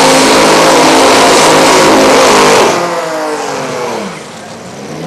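Supercharged drag car's engine at full throttle, very loud and steady. About two and a half seconds in it drops away, falling in pitch as the car heads down the track. Near the end another engine revs up.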